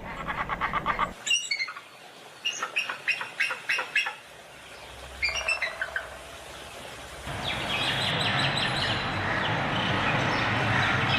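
Bird calls: a fast run of short repeated calls at the start, then scattered calls, then a dense, steady flock chorus from about seven seconds in.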